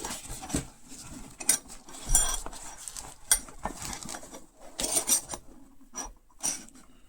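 Steel spanners clinking and rubbing against each other as they are handled, with several sharp metallic clinks that ring briefly.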